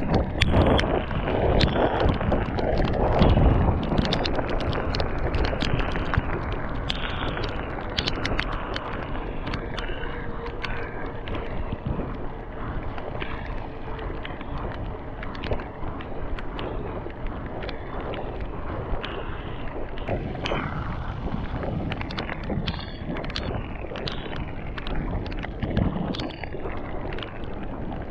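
Wind buffeting the microphone and mountain-bike tyres hissing on a wet road during a fast descent, loudest in the first few seconds, with frequent small clicks and rattles throughout.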